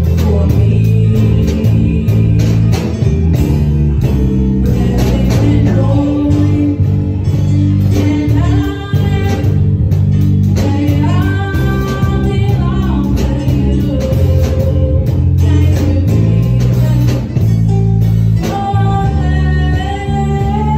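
Gospel praise team singing together into handheld microphones over an instrumental backing with a strong, steady bass line.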